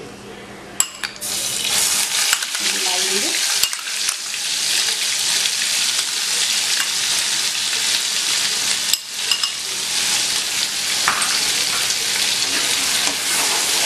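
Ground paste of onion, green chilli, ginger and melon seeds dropped into hot oil in a metal kadhai, sizzling from about a second in as it fries and is stirred, with a few clicks of the spoon against the pan.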